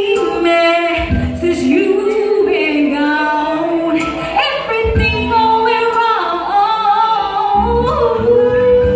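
A woman singing a slow soul ballad live into a microphone through a PA, holding long notes and bending into vocal runs. Low bass notes from the accompaniment come in a few times underneath.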